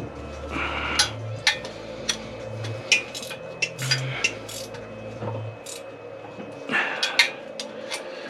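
Metal hand tools clinking and clicking against bolts and engine parts: a string of sharp, irregular taps, several a second, with short scraping rattles about a second in, around four seconds and near the end, as fasteners are done up during engine reassembly.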